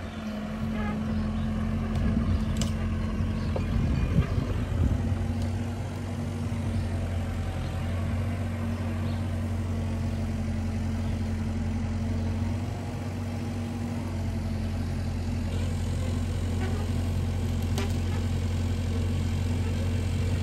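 Bobcat mini excavator's diesel engine running steadily, with a few sharp knocks in the first few seconds.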